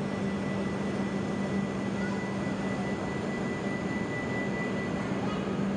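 Steady electrical hum and equipment noise of a Shinkansen train standing at the platform, with a thin steady high tone that stops about five seconds in.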